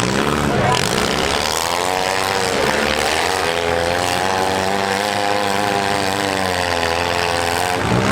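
Demolition derby compact cars' engines revving hard under throttle, the pitch swelling and falling once, then held high for several seconds before dropping away near the end.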